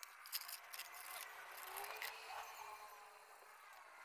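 A few faint clicks and scrapes from hands handling parts around a motorcycle's engine sprocket, in the first second or so, then only faint background noise.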